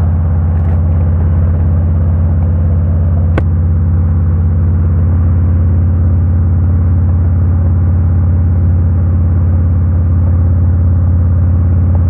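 Harley-Davidson Road King's V-twin engine running steadily while riding at an even speed. There is a single short click about three and a half seconds in.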